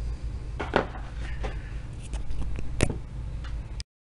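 A few small knocks and clicks as a digital eyepiece camera is handled and set down on its cardboard box, over a steady low hum. The sound cuts off suddenly near the end.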